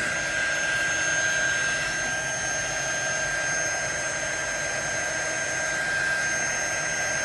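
Hair dryer running steadily, a constant rush of air with a steady high-pitched whine from its motor.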